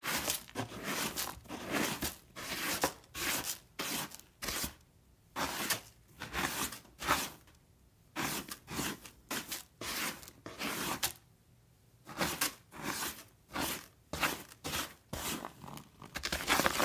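A cat scratching and digging in cat litter in a litter box: gritty scraping strokes come in quick runs of about two a second, broken by a few short pauses.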